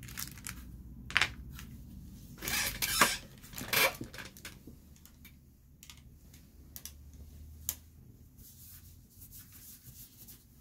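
Clicks and short rustles of pastel pencils and drawing supplies being handled at a desk, with the loudest burst of rustling about two and a half to four seconds in.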